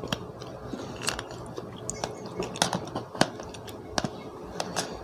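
Close-up chewing and biting into fresh blue crab, with irregular sharp crunches of shell.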